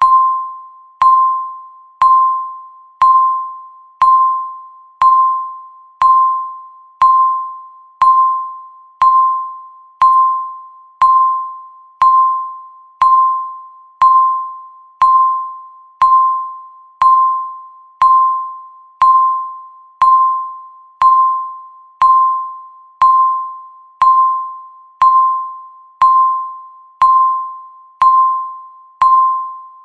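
Electronic countdown-timer beep sounding once a second, each a single clear tone that starts sharply and fades away before the next.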